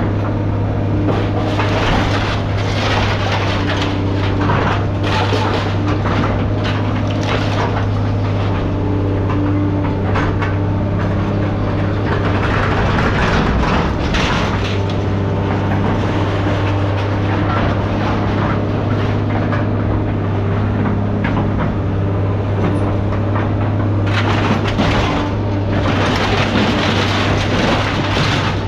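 A large machine engine running steadily at a constant drone, with repeated clanks and rattles of metal.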